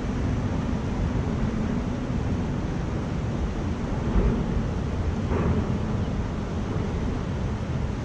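Steady rush of a shallow river riffle flowing over rocks, with wind buffeting the microphone.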